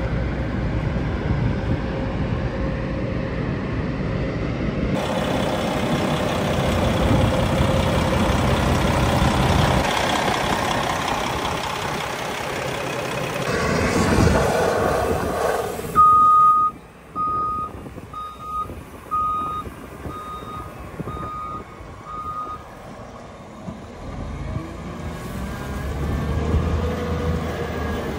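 Caterpillar 980K wheel loader running as it pushes its bucket into a pile of corn. Past the middle its reversing alarm beeps about once a second, seven times, as it backs away with a loaded bucket, and the engine picks up again near the end.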